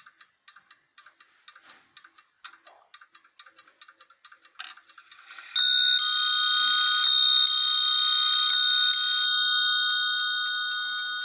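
A 1960 Swiss Neuchatel mantel clock ticking steadily, then, about five and a half seconds in, striking its three-quarter-hour chime. The chime is three pairs of strokes on two bells, each pair high then low, ringing on and slowly fading.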